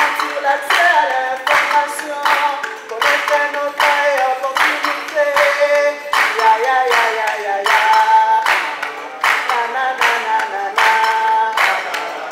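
A group of people singing together while others clap along in a steady rhythm, about two claps a second.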